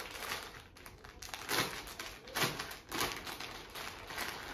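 Rustling and crinkling of a folded sador (Assamese shawl) in its wrapping as it is handled, with three louder crinkles in the middle.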